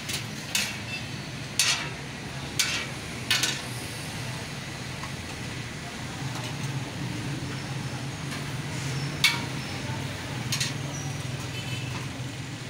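Scattered sharp clinks and taps of metal utensils at a street-food griddle, about seven in all and bunched near the start, over a steady low hum of road traffic.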